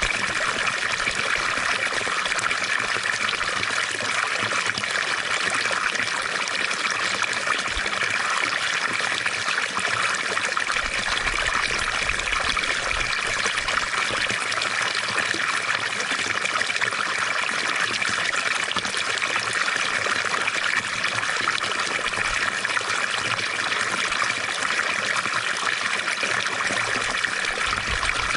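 Water fountain splashing and trickling steadily, an unbroken hiss of falling water.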